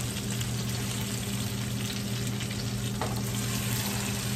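Corvina steaks sizzling steadily in hot oil in a frying pan while being turned over with spatulas; a spatula clicks against the pan about three seconds in.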